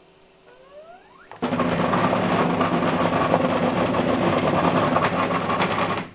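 The JGAurora A7 3D printer's filament feeder motor: a short rising whine, then about a second and a half in a loud, steady mechanical whirr that cuts off suddenly near the end. The feeder started on its own, which the owner puts down to the spool holder's weight pressing it down.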